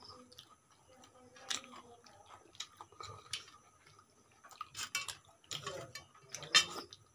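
Metal spoons clinking and scraping against a steel plate of curry, with chewing sounds of people eating. The clicks come singly and sparsely at first, then several close together near the end.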